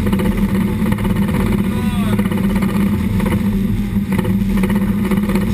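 Pilot boat's engines running steadily under way, a constant deep drone heard from inside the wheelhouse, with the rush of water along the hull.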